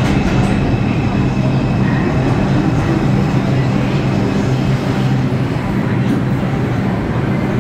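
R142 subway train on the 2 express pulling into the station and slowing to a stop, its traction motors and wheels on the rails making a steady, loud low hum.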